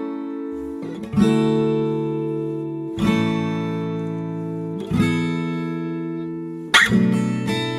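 Background music: acoustic guitar strumming slow chords, about one every two seconds, each left to ring and fade, with quicker strumming near the end.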